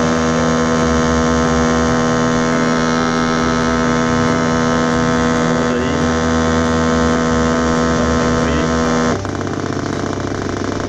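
Electronic motorcycle-engine imitation from a homemade 555-timer oscillator circuit played through a small speaker: a loud, steady buzzing tone. About nine seconds in it cuts suddenly to a quieter, rougher, rapidly pulsing buzz.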